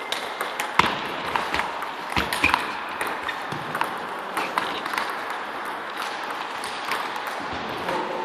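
Table tennis ball clicking off the bats and the table in a rally, a sharp hit every half second or so, with many fainter clicks beneath.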